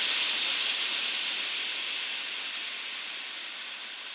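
Steady hiss of steam, concentrated in the high range, fading gradually.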